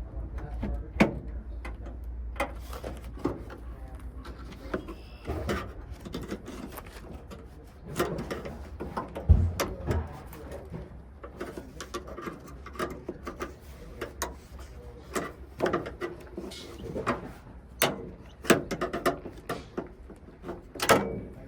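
Irregular clicks, knocks and light metallic rattles of hand work on a van's side-door lock mechanism, with one heavier thump about nine seconds in.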